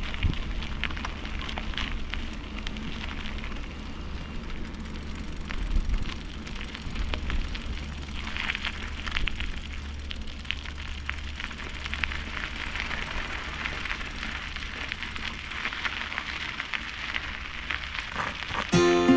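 Wind rumbling on a bike-mounted or handheld action camera's microphone while cycling, with a steady crackle of bicycle tyres rolling over the track. Acoustic guitar music comes in near the end.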